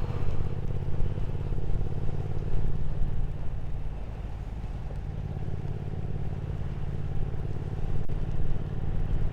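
Triumph Speed Twin 1200's parallel-twin engine running at a steady pace on the road, under wind and road noise. It eases off about four seconds in, then slowly picks up again.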